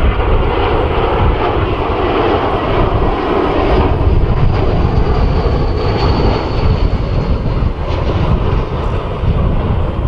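Jetstar Airbus A320-232's IAE V2500 turbofans running as the jet passes close on short final and flares to land: a steady jet roar with a faint high whine in the middle. Low wind rumble on the microphone underneath.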